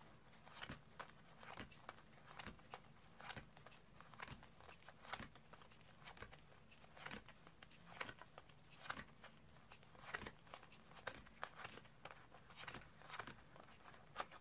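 Faint, irregular soft clicks and slides of playing cards as a mixed deck is spread between the hands and red-backed cards are pulled out and dropped onto a pile.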